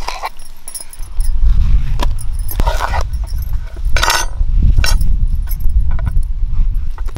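Snake gourd being cut and scraped on a wooden chopping board: knife and fingers scraping out the seeds, with bangles jingling. A low rumble of wind on the microphone sets in about a second in.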